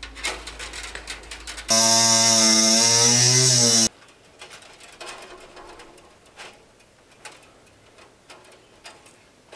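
Light clicks and scrapes of wire being handled at a fence. About two seconds in, a loud, steady buzzing tone starts; it lasts about two seconds and cuts off abruptly.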